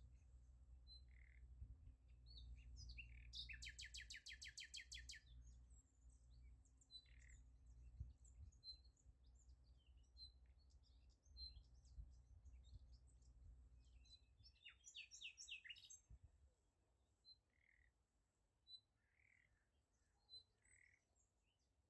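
Faint small-bird chirps and twitters, with a rapid trill about three seconds in and another near fifteen seconds, over a low rumble that fades out about two-thirds of the way through.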